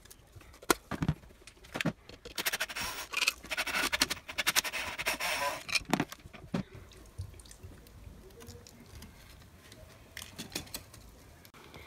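Screwdriver prying the plastic cover plate off a wall light switch: scraping and a dense run of clicks for a few seconds, then a few more clicks near the end as the switch is worked loose from the wall.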